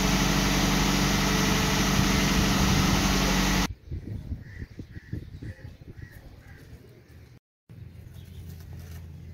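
A loud, steady engine drone that cuts off abruptly a little over three seconds in. Then it is much quieter: soft irregular knocks and about five faint crow caws in a row.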